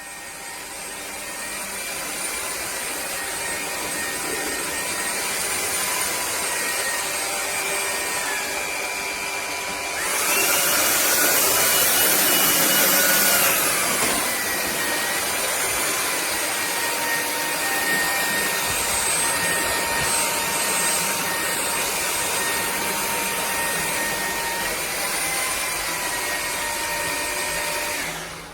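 Dreame Z20 cordless stick vacuum running with a steady rushing motor noise and a high whine. About ten seconds in it turns louder and higher-pitched for about four seconds, then drops back, and it cuts off near the end.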